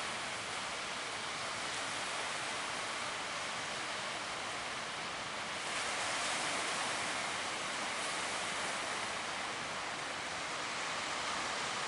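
Steady rush of surf: waves breaking and water churning at a river mouth, a little louder from about six seconds in.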